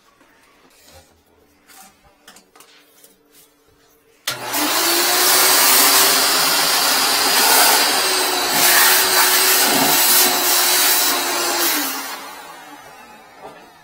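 Wet-dry vacuum switched on about four seconds in, its motor running with a steady hum and rushing air as its hose draws water out of a clogged toilet bowl; it is switched off near the end and winds down. Before it starts, a few light knocks.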